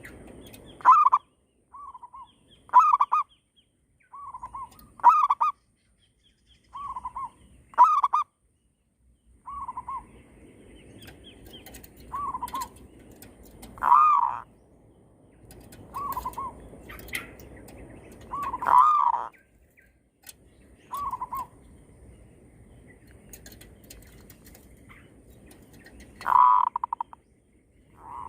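Zebra doves (perkutut) cooing: short, trilled coo phrases repeat every second or two, some loud and close and others fainter, as birds answer one another.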